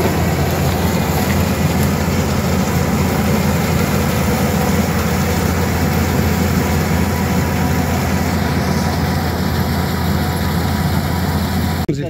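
Combine harvester running steadily as it cuts and threshes paddy, a steady low engine drone.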